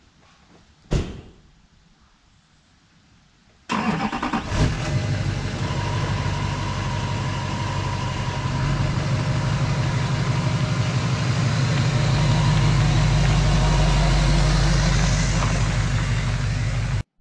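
A single thump about a second in, then a Chevrolet Silverado pickup truck's engine starts suddenly a little over three seconds in. It runs steadily and grows slightly louder as the truck drives out, then cuts off just before the end.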